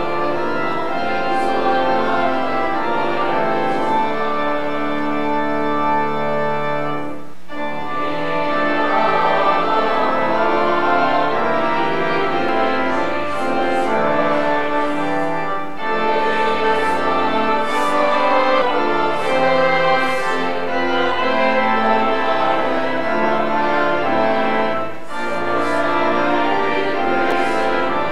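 Church organ playing a hymn, with the congregation singing along. It goes in phrases, with short breaks between lines about every eight or nine seconds.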